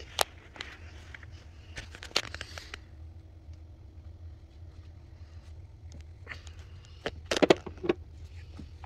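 Scattered light clicks and knocks from handling small objects, over a steady low hum, with a short cluster of louder knocks about seven seconds in.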